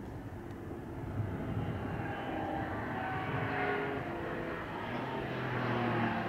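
A muscle car's engine running hard at a distance, its drone growing gradually louder as the car comes closer.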